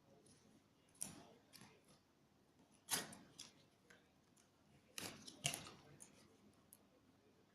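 A few short clicks and rustles of cards being handled: one about a second in, one near the middle, and a close pair a little later.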